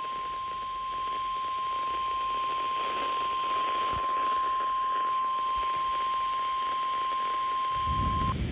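NOAA Weather Radio 1050 Hz warning alarm tone: one steady beep held for about nine seconds, stopping shortly before the end, over the hiss of the weather radio receiver. The tone marks a warning-level alert, here a flood warning, and follows the SAME data header bursts.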